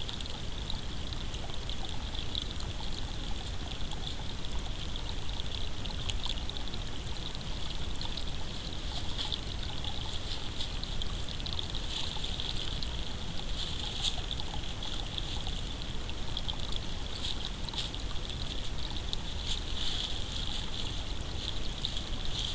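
Steady hiss, brightest in a high band, with faint irregular ticks throughout, as picked up by a trail camera's built-in microphone; nothing from the deer stands out.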